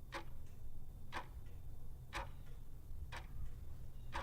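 Ticking clock sound effect used as a quiz countdown, one tick about every second, over a low steady hum.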